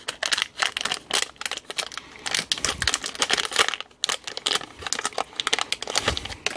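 Crinkling and rustling of a thin metallised anti-static plastic bag being handled and unwrapped by hand, with many quick irregular crackles and a brief pause about four seconds in.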